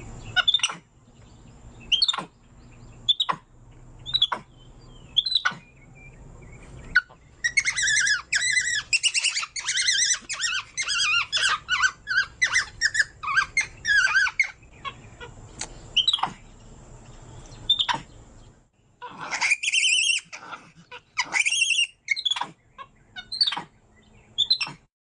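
Capuchin monkey calling with short, high-pitched squeaks about one a second. About a third of the way in comes a dense run of rapid chittering chirps lasting several seconds, and a few longer, louder calls follow near the end.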